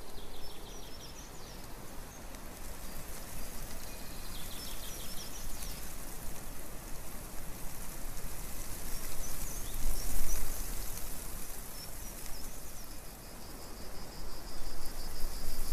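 Outdoor background noise: a steady, even hiss with a low rumble beneath it and a few faint high chirps now and then.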